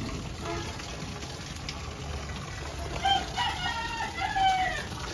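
A rooster crowing once: one long pitched call starting about three seconds in and lasting about two seconds, dropping in pitch at the end.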